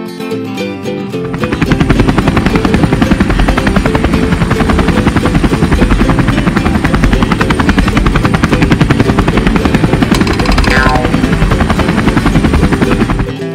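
Helicopter rotor chopping, a steady fast beat of the blades, starting about a second in and cutting off just before the end, with background music.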